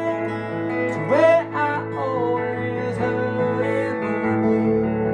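Steel-string acoustic guitar fingerpicked, letting arpeggiated chords ring in an instrumental passage, with a short gliding tone about a second in.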